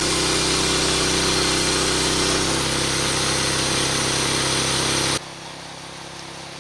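Homemade bandsaw mill running, its small gasoline engine turning the band blade at speed through a larger 14-inch drive wheel fitted to slow the blade. About five seconds in the sound drops abruptly to the same engine idling more faintly.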